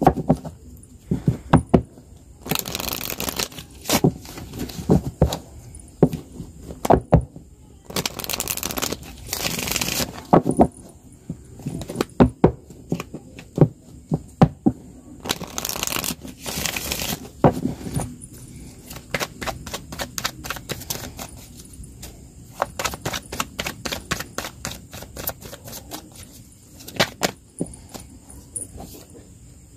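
A deck of cards being shuffled by hand: a run of card flicks and snaps, with several longer riffling rushes in the first half and a fast patter of clicks through the second half.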